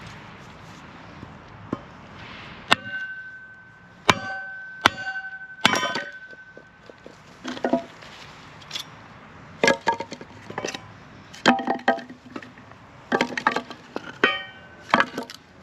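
Small sledgehammer striking firewood set in a cast-iron Kindling Cracker, splitting it into kindling. The first few strikes are sharp metallic clangs with a brief ringing tone; later they come in quick clusters of knocks with the wood cracking apart.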